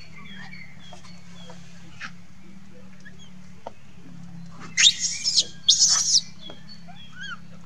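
Baby macaque screaming twice in quick succession about five seconds in. Each cry is loud, shrill and high-pitched and lasts about half a second. Faint short chirps are heard around it over a steady low hum.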